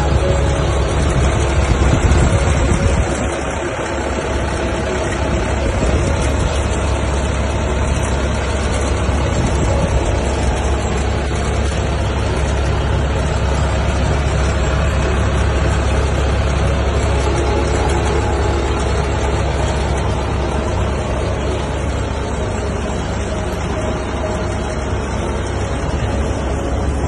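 Kubota DC93 combine harvester's diesel engine idling, a steady low drone that holds unchanged throughout.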